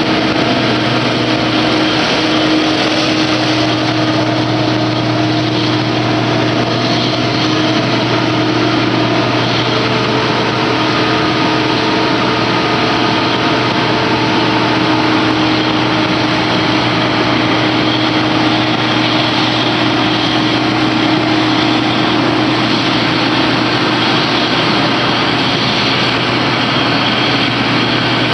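Heavy engine running steadily at a constant speed, with no change in pitch.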